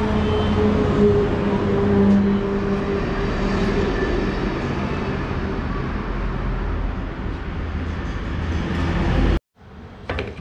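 A motor vehicle's engine hums steadily close by over a low road rumble. The sound cuts off suddenly near the end.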